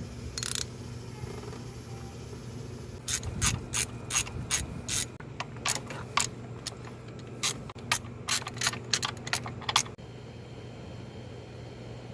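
Socket ratchet clicking as a spark plug is turned in the cylinder head of a Honda B18C1 engine: one short burst about half a second in, then a run of separate clicks, two or three a second, from about 3 s until they stop near 10 s. A steady low hum sits underneath.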